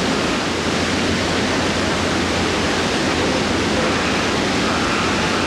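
Steady rush of fast-flowing, churning water.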